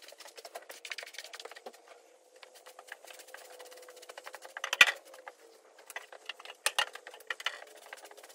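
Stable-cleaning tool scraping and rustling through wood-shavings bedding in a stall, a busy run of small scratches and clicks, with one sharp knock just under five seconds in.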